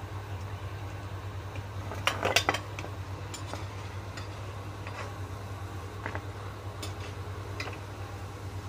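A steel slotted spoon clinks and scrapes against a metal kadhai (wok) as fried cookies are lifted out of the oil, in scattered clicks with the loudest cluster about two seconds in. A steady low hum runs underneath.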